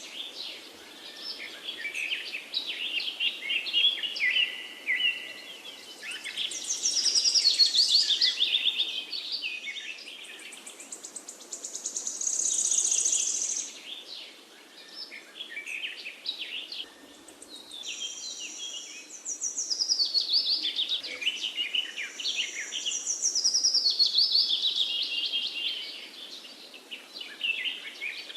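Several songbirds singing at once in a forest chorus: overlapping high trills and quick runs of chirping notes that rise and fall in waves every few seconds.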